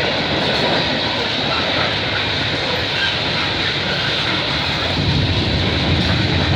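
Freight train cars rolling steadily past, wheels running on the rails, with heavy rain falling.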